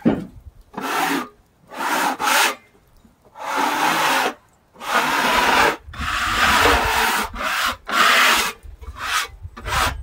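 Repeated scraping strokes on the freshly sawn face of a hard maple log, each lasting about half a second to a second with short, irregular gaps. The scraping clears fresh sawdust off the cut maple, which would otherwise stain it.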